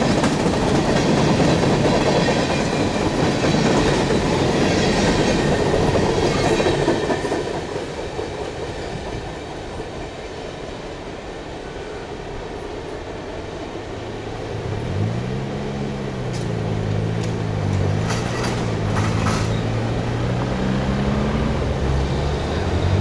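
Freight cars of a mixed train rolling past close by, wheels clattering over the rail joints, loudest in the first several seconds and quieter after. About two thirds of the way in, a deep engine hum rises in pitch and then holds steady under the rolling noise.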